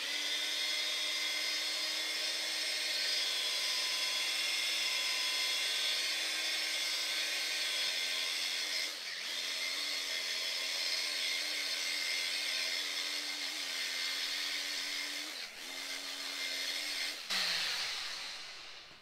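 Electric polishing machine running with its pad on freshly painted moped bodywork, cutting with first-stage compound. A steady motor whine that dips in speed briefly about halfway through and again later, then winds down with falling pitch near the end.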